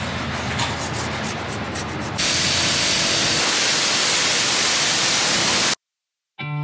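Car-wash high-pressure lance spraying water onto a car. There is a lower hiss at first, then a loud steady hiss from about two seconds in that cuts off abruptly near the end.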